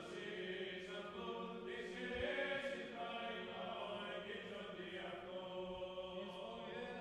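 Quiet background choral music: voices chanting in long held notes that change slowly.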